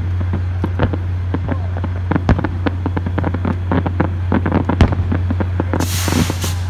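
Fireworks display: aerial shells bursting in quick succession, a rapid run of bangs and crackles, with a hiss lasting under a second near the end. A steady low hum runs underneath.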